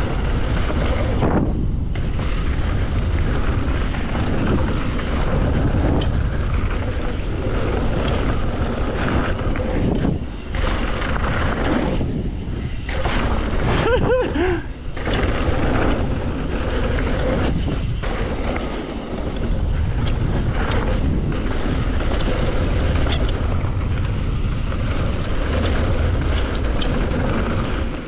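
Wind buffeting the rider's camera microphone on a fast mountain bike descent, mixed with the tyres and bike rattling over a dirt trail, with brief lulls about a third and halfway through.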